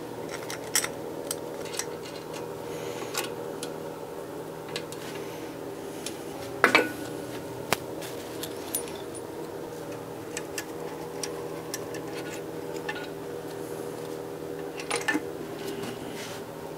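Scattered light metallic clinks and knocks as pistons on their connecting rods are handled and pulled out of a Honda R18 engine block, with one louder ringing clank about seven seconds in, over a steady background hum.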